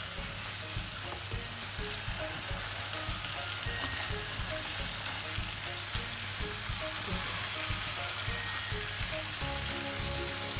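Marinated chicken pieces sizzling steadily in oil and butter in a grill pan as they are turned over with silicone spatulas, with small knocks and scrapes of the spatulas against the pan.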